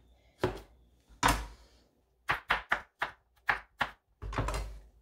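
Chef's knife chopping bell peppers on a plastic cutting board: two single cuts, then a quick run of about eight chops, and a longer stroke near the end.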